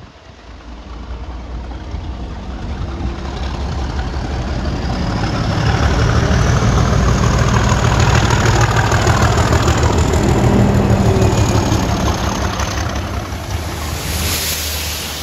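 Class 37 diesel locomotive with its English Electric V12 engine running under power, growing louder as it approaches and passes close by, with wheels rolling over the rails. Near the end comes a hiss of water from the railhead treatment train's tank wagons jetting the rails.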